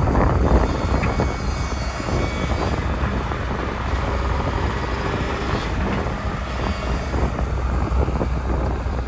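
Kobelco SK210LC excavator's 5.1-litre four-cylinder diesel running at a steady idle.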